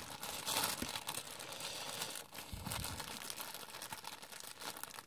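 Soft crinkling and crackling of the clear plastic film wrapped around a stack of paper cups as hands handle it and press a plastic ruler against it, growing fainter toward the end.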